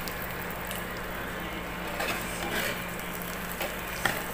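Egg-and-noodle omelette frying in a pan: a steady sizzle with faint scattered pops and a small click near the end, over a low steady hum.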